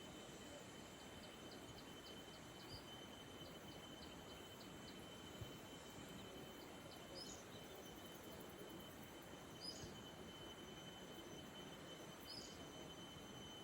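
Faint rural outdoor ambience: a low, even hiss with a thin steady high tone. A run of quick, faint high ticks, about three a second, lasts for the first five seconds or so, and from about seven seconds in a short high chirp comes three times, about two and a half seconds apart.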